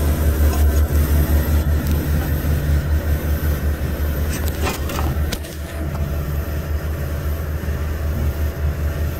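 Walk-in cooler evaporator unit running: a steady low machine hum, most likely its fan motors. A couple of light knocks come about five seconds in.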